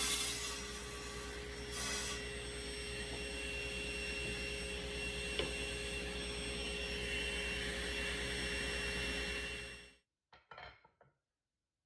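Powermatic table saw running with a steady whine while a board is fed through the blade for a rip cut. It cuts off suddenly near the end, followed by a few light knocks of wooden pieces being set down.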